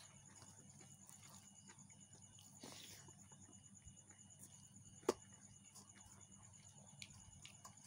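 Quiet eating by hand from a steel plate: faint mouth and finger sounds, with one sharp click about five seconds in as fingers strike the plate. A faint steady high insect trill runs behind.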